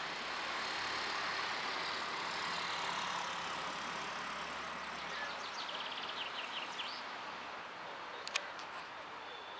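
Outdoor ambience: a steady rushing noise that swells and then slowly fades, like distant traffic passing. A quick run of bird chirps comes past the middle, and there is one sharp click near the end.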